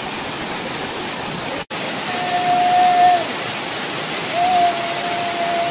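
Waterfall cascading over rock ledges, a steady heavy rush of water, broken by a brief gap a little under two seconds in. Twice over the rush a long, steady high call rings out, once about two seconds in and again from past the middle to the end.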